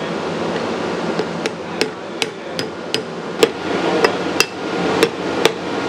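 A cleaver chopping and cracking a raw mud crab on a wooden chopping block: a run of about a dozen sharp knocks, starting about a second in and coming two or three a second.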